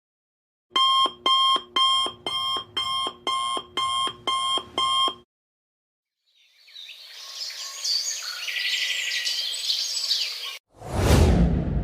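Digital alarm clock beeping, about ten quick pitched beeps at roughly two and a half a second, then stopping. After a pause comes a few seconds of high, busy chirping noise, and near the end a sudden loud burst that fades away.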